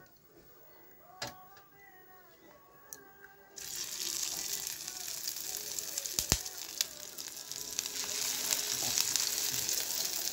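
Pieces of dhoka, a Bengali lentil cake, sizzling and crackling in hot oil in a kadai. The sizzle starts suddenly about three and a half seconds in, after a faint start, and a single sharp knock comes about six seconds in.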